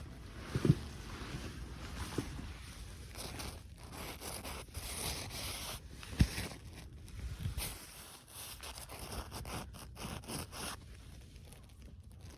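Rustling and scraping of things being handled, with a couple of sharp knocks, one under a second in and one about halfway.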